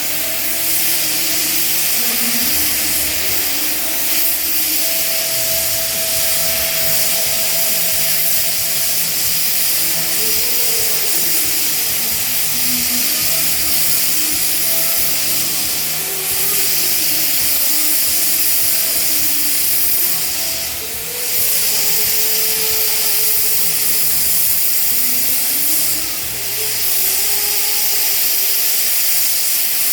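Steady hiss of a gas torch flame used for welding quartz glass, with background music carrying a melody underneath. The hiss dips briefly twice, about two thirds of the way through and again a few seconds later.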